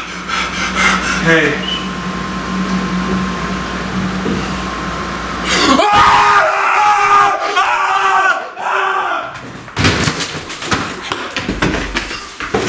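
A steady low hum, then a person's voice screaming loudly for about three seconds, starting about six seconds in. Then a quick series of thumps and knocks, like hurried footsteps and a scuffle.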